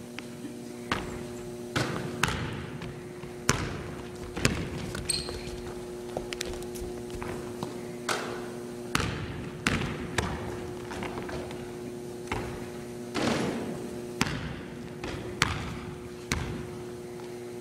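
Basketballs bouncing on a hardwood gym floor: irregular single thuds about once or twice a second, each echoing briefly in the hall, over a steady low hum.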